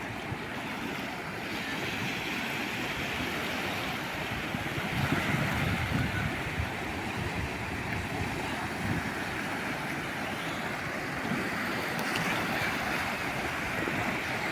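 Calm sea waves washing in, a steady wash of surf, with wind buffeting the microphone in low rumbles.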